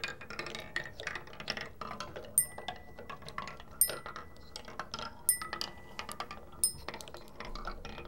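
Handmade wooden spiral marble machine running: a marble clicks and rattles down the wooden ramps, and about every second and a half a ringing metallic strike sounds, four times from a couple of seconds in.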